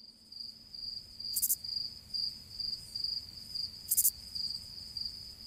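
Crickets chirping: a steady run of high chirps, about two to three a second, with two short higher bursts of hiss about a second and a half in and again near four seconds. It serves as the comic 'crickets' effect for dead time while nothing happens.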